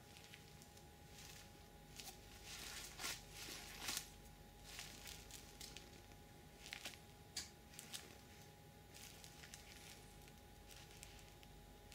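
Faint handling sounds of latex goalkeeper gloves: the palms and fingers rubbing and peeling apart, making short scuffs and clicks, loudest about two to four seconds in. A faint steady tone runs underneath.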